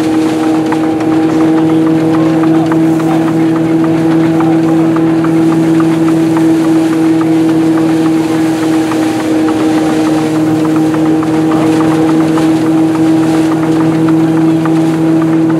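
Belt-driven wooden threshing machine running at speed: a steady, even hum from the spinning drum with rattling and light ticking as sheaves go through. The lower part of the hum briefly drops away a little past halfway, then returns.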